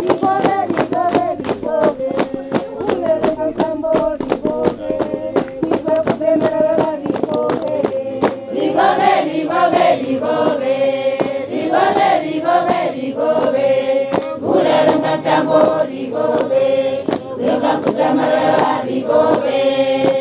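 A group of women singing a Chewa chant together, with sharp handclaps keeping a steady beat of about two to three claps a second. The singing grows fuller about nine seconds in.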